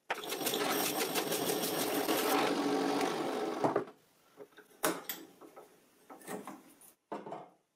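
Small low-power benchtop drill press with a hole saw fitted, its motor running with a steady whir and a fast rattle, stopping about four seconds in. After that come scattered light clicks and taps of a screwdriver working at the hole saw.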